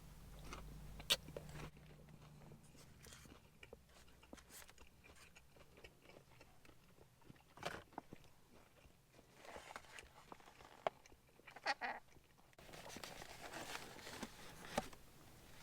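A person eating a McDonald's chicken McNugget close to the microphone: faint biting and chewing with scattered small mouth clicks and smacks.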